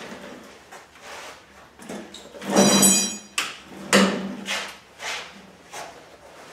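Handling sounds of a welder putting on a welding helmet and leather welding gloves: rustling and soft knocks, with a loud short squeak about two and a half seconds in and a sharp knock about a second later.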